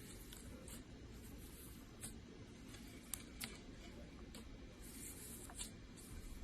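Slime being handled: faint scattered clicks and soft crackles over a low steady hum, with the sharpest click about three seconds in.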